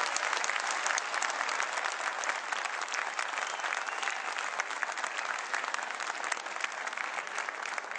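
A large seated audience applauding steadily: dense, continuous clapping from many hands.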